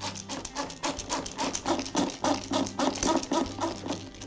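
Screwdriver backing a screw out of the plastic cover of an Echo PB-500 backpack blower, creaking in quick even strokes, about six a second.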